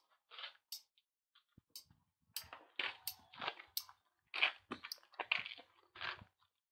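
Footsteps crunching on a gritty floor, a dozen short irregular steps at about two a second.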